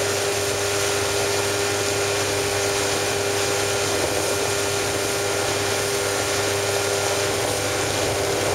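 Motorboat engine running steadily at high throttle, a constant hum under a steady rush of wind and water noise.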